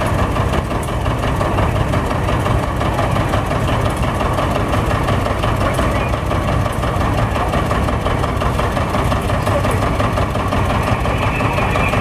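John Deere two-cylinder tractor engine idling steadily.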